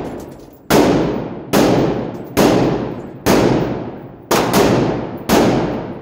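Gunshots fired at a steady pace, about one a second, with seven shots and two of them close together about four seconds in. Each shot rings out in a long echo off the walls of an indoor shooting range.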